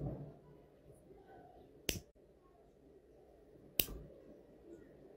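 Disposable lighter struck twice, about two seconds apart: two sharp clicks. A soft low thump comes right at the start.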